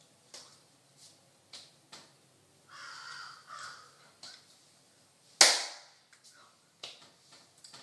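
Hands tapping and slapping against each other while signing: a scatter of light taps, and one much louder sharp slap about five and a half seconds in. A short breathy mouth sound comes around three seconds in.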